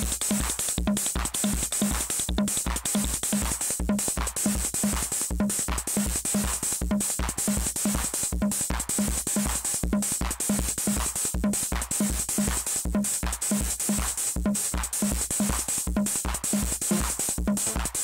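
Electronic acid-style track from a Korg Volca Keys analog synthesizer and a Behringer RD-6 analog drum machine: a steady, evenly repeating kick-drum pulse under a repeating synth pattern and a constant high hiss of cymbal sounds.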